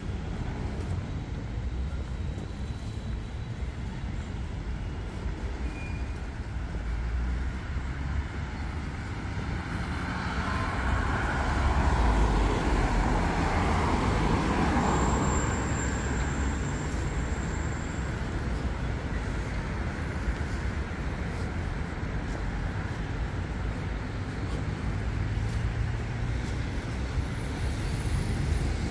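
Traffic on a city street: a steady run of passing vehicles, with one passing louder from about ten to sixteen seconds in.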